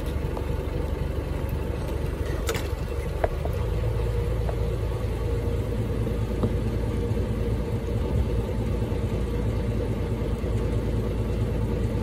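Boat engine running steadily at a low, even drone, with a few faint ticks.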